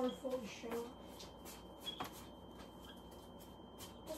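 Brief clucking from the backyard chickens at the start, then one sharp click about two seconds in as the wall switch turns off the fluorescent shop lights; faint scattered ticks otherwise.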